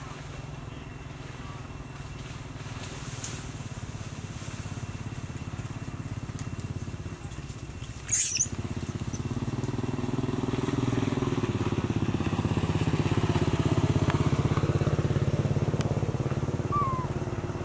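A motor vehicle engine, motorcycle-like, runs steadily, growing louder from about ten seconds in and easing off near the end as it passes. About eight seconds in, a young long-tailed macaque gives one brief, loud, high-pitched shriek as its mother swats it.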